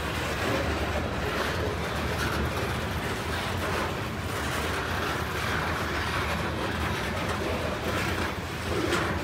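CSX freight train cars rolling past with a steady rumble, their wheels clacking over the rail joints.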